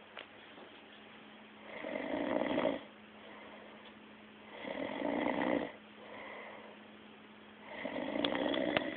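A person snoring in deep sleep: three loud snores about three seconds apart, each lasting about a second, with quieter breaths between.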